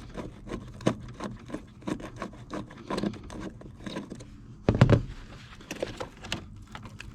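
Hand tool working the corroded mounting bolts of an old truck's floor-mounted dimmer switch: repeated short scraping strokes, about three a second, then one loud thump about five seconds in.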